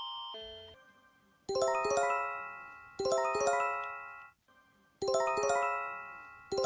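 Homemade EAS-style alert tone made of electronic chimes: a quick run of bell-like notes that ring and fade, repeated four times about every one and a half seconds. Before it, the end of a buzzing alarm tone fades out in the first second.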